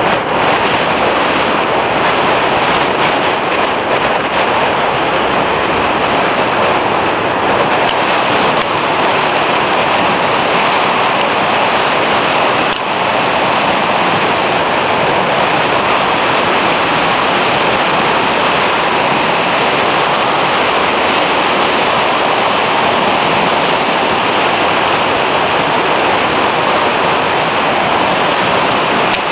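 Wind rushing over the microphone of a camera on a moving scooter, a loud, steady roar that drowns out the engine.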